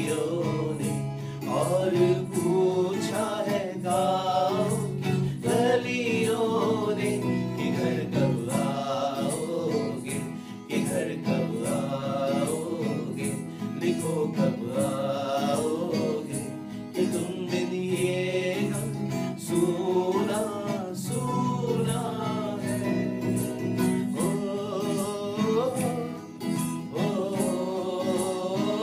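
Two men singing a Hindi film song together, accompanied by a strummed acoustic guitar keeping a steady rhythm.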